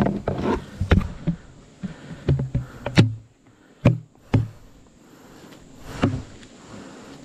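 A plastic bucket's lid being pressed shut and the bucket handled with gloved hands: irregular knocks and clicks with dull thumps and rustling, the sharpest knocks about three, four and six seconds in.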